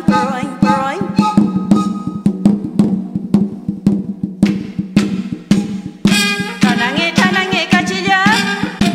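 Music: a Mapuche harvest-dance song, singing over a steady drum beat. For a few seconds in the middle only the drum beat plays, then the singing comes back.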